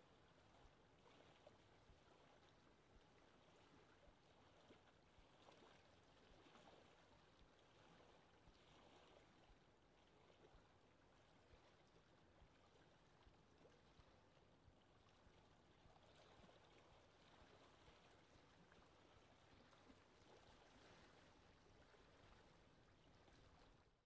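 Faint ocean surf: a steady wash of waves with soft swells every few seconds.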